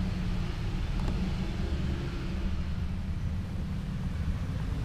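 Gas stove burner running under a wok of boiling egg noodles: a steady low rumble with a hiss.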